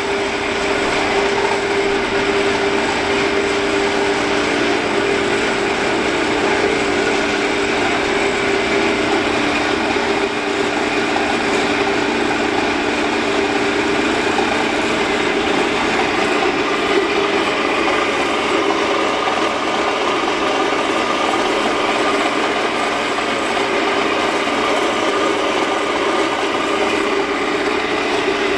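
Ellis 1600 horizontal band saw running without a workpiece: its electric motor and blade drive give a steady mechanical hum and whir.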